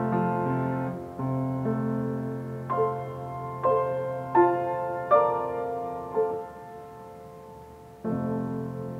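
Solo grand piano played slowly: low chords held under single melody notes struck about once a second, each left to ring and fade. The sound thins out for a moment about two-thirds through, then a new chord is struck near the end.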